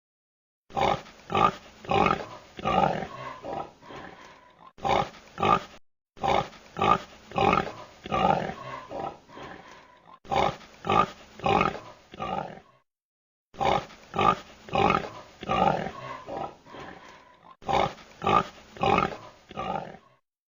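Domestic pig grunting in quick runs of short calls, about two a second, broken by brief pauses.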